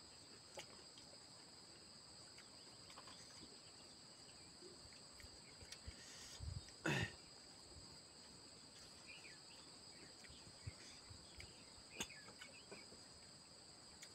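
Near silence with a steady high-pitched chirring of crickets; faint scattered clicks and one brief louder sound about seven seconds in.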